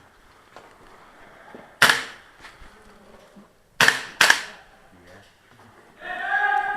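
Airsoft guns firing three single shots: one about two seconds in, then two in quick succession about four seconds in, each a sharp crack with a short echo off the hard interior.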